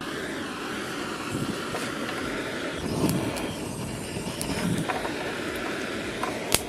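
Handheld butane torch burning with a steady hiss that starts abruptly, held to charcoal and a plastic bag to light them. A sharp click near the end.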